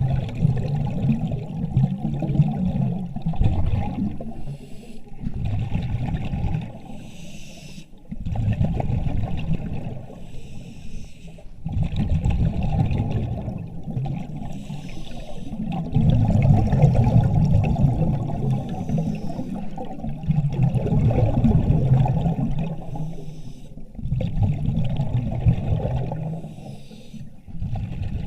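A diver breathing through surface-supplied diving gear: a repeating cycle of breaths, with the exhaled air bubbling out, about one breath every four seconds.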